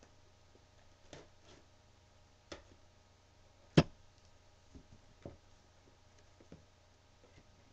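Hands working open a cardboard shipping case: scattered light knocks and scrapes on the cardboard, with one loud, sharp knock about four seconds in as the top flaps are pulled loose.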